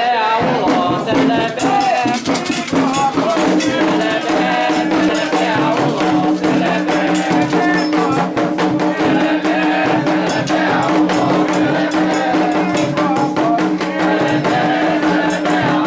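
Afro-Brazilian ritual percussion music, led by rapidly shaken rattles. A steady low held tone joins about three seconds in.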